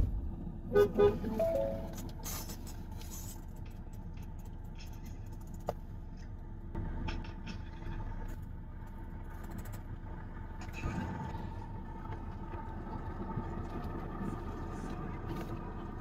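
A car door shuts with a thud, then the steady low hum of the Ford SUV idling, heard from inside the cabin.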